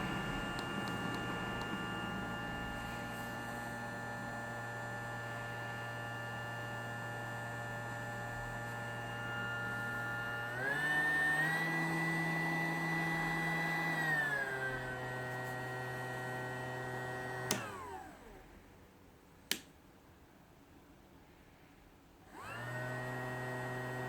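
YIHUA 8858 hot-air rework gun's fan motor running with a steady whine. About ten seconds in it speeds up, then slows back down a few seconds later; later it is switched off with a click and winds down, a second click follows, and near the end the fan starts up again.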